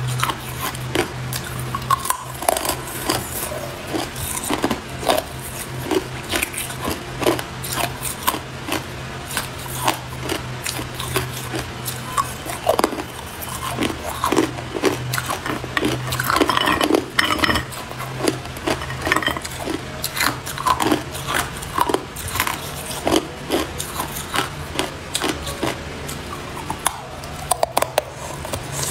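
Hard clear ice being bitten and crunched between the teeth: a dense, irregular run of sharp cracks and crunches, with ice clinking against a glass mug. A steady low hum lies underneath.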